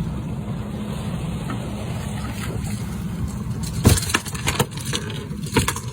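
A steady low engine drone, with a handful of sharp knocks and clatters between about four and five and a half seconds in, the loudest near four seconds.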